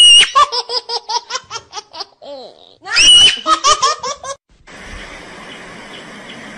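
High-pitched human laughter: a shrill squeal, then a rapid run of giggles, repeated twice.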